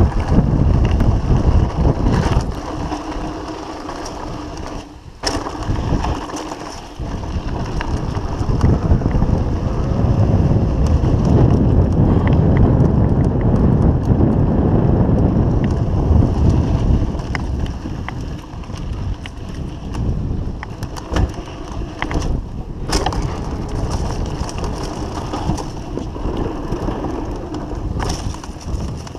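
Trek Fuel EX mountain bike rolling fast downhill over gravel and then a dirt trail: a loud, steady rumble of tyres and rattling bike, with wind buffeting the camera's microphone. A few sharp knocks from bumps, the clearest about 5 s and 23 s in.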